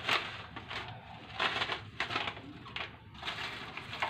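Irregular rustling and crinkling in a series of short bursts, the sound of something being handled.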